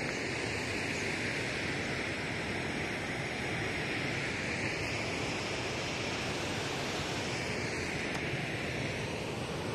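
Steady wind rushing across the microphone outdoors, an even hiss with no distinct events, its upper part slowly swelling and fading.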